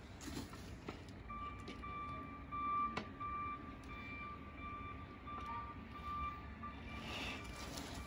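Vehicle back-up alarm sounding a steady series of short, even beeps, starting about a second in. A sharp knock stands out about three seconds in.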